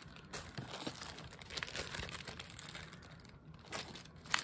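Plastic zip-top bags crinkling and rustling as hands pull small bagged jewelry out of a larger bag, with a sharp tick near the end.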